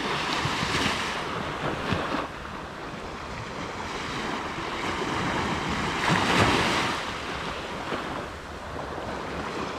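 Surf washing onto a sandy beach, swelling and fading, with the loudest wave breaking about six seconds in; wind buffets the microphone.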